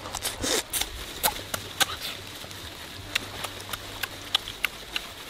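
A person chewing chicken, with wet mouth smacks and clicks coming irregularly at about three a second.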